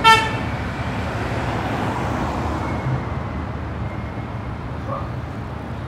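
Steady road traffic noise. Right at the start there is a brief, sharp, pitched beep, the loudest moment.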